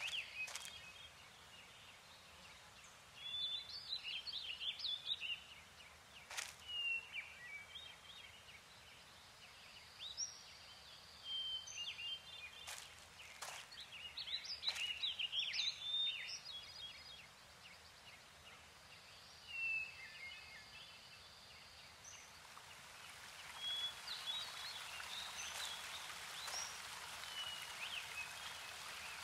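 Small birds chirping and singing in short bursts of high notes, repeated every few seconds over a faint steady hiss of woodland air, with a few sharp clicks.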